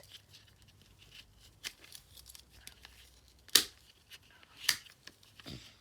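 Duncan Color Shift plastic twisty puzzle being scrambled by hand: scattered light clicks of its turning pieces, with two louder clacks about three and a half and four and a half seconds in.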